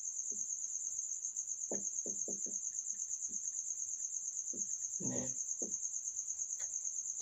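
A cricket chirring steadily, a high, rapidly pulsing trill, over soft short scratches of a marker writing on a whiteboard.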